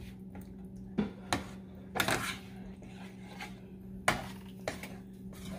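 A plastic spoon stirring thick coconut-milk curry in a nonstick pot, knocking against the pot about five times, loudest about four seconds in, over a steady low hum.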